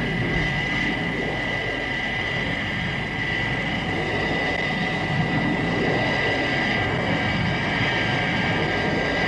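Steady jet aircraft engine noise, as in level flight: a constant high whine over a broad, even rumble.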